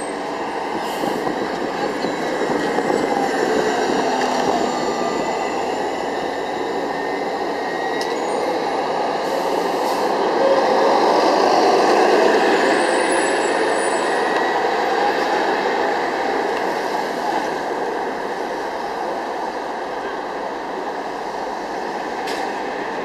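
Diesel articulated transit bus (New Flyer XD60 with Cummins ISL9 engine) driving past in street traffic, its steady engine and road noise swelling to a peak about halfway through, then slowly fading.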